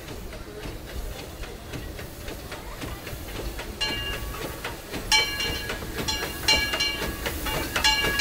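Disneyland Railroad steam locomotive rolling in with a low rumble and steady clicking of its wheels. From about four seconds in, its bell rings over and over as it approaches the station.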